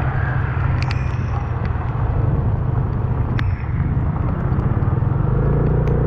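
Motor scooter engine running steadily while riding, with a loud low rumble and road noise throughout and a few sharp ticks.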